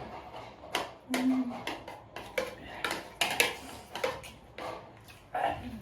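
Eating utensils clinking and scraping against a dish while noodles are eaten: a string of sharp, irregular clinks, with a short vocal sound about a second in.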